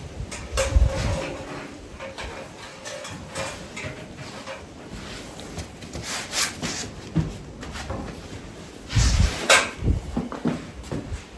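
Scattered knocks, clunks and rattles of hands and tools working on the car, with a louder cluster of thumps about a second in and another near the end.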